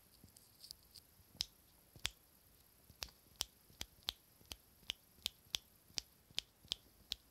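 Faint, sharp taps or clicks, a few scattered at first, then settling into a fairly even run of about three a second.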